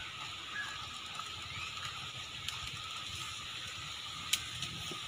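Wood fire under a clay cooking pot crackling, with a few sharp pops, the loudest about four seconds in, over a steady high-pitched background hiss.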